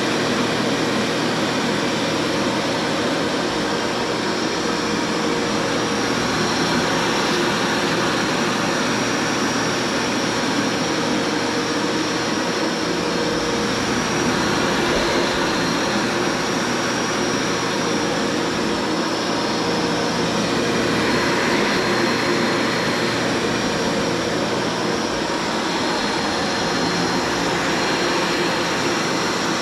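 Bissell ProHeat upright carpet cleaner running steadily, its motor whining over a rush of suction air, with freshly replaced belts, as it sprays and sucks up water from the carpet.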